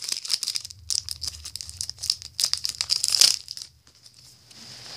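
Foil wrapper of a Pokémon card booster pack crinkling and tearing as it is opened, in quick irregular crackles that die down about three and a half seconds in.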